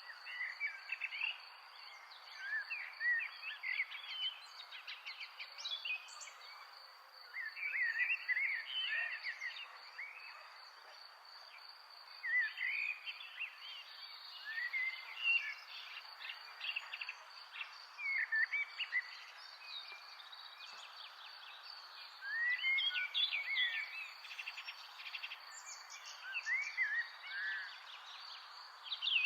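Songbirds singing in repeated short warbling phrases, over a steady, evenly pulsing insect trill.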